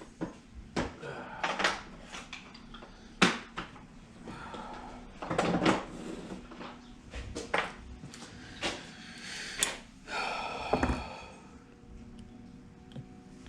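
Irregular clicks, knocks and rattling of hand tools and small metal parts handled on a workbench, as a Torx bit set is got out and the Torx screws are handled. There is a short squeak a little before the end.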